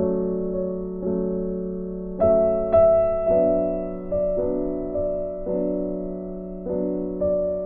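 Background music: soft piano or electric piano chords, struck about once a second and left to fade.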